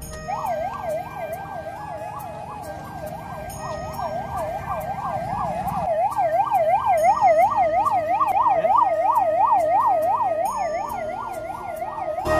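Ambulance siren in a fast yelp, its pitch sweeping up and down about three times a second, growing louder about halfway through.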